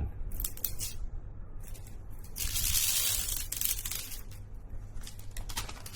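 Smartphone retail box being opened by hand: a few light clicks and handling taps, then a noisy sliding, tearing hiss lasting about a second, then more light clicks as the packaging is handled.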